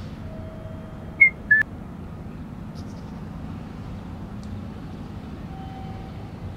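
Outdoor night ambience: a steady low hum, with two short, high chirps a little over a second in.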